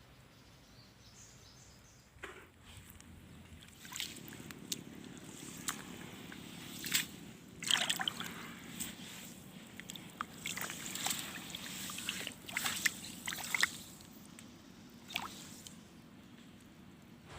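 Water sloshing and splashing in a string of short, irregular bursts, some with sharp clicks, busiest in the middle and thinning out near the end.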